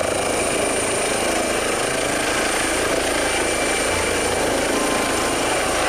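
Helicopter rotor and engine sound: a steady whirring noise with a thin high whine over it.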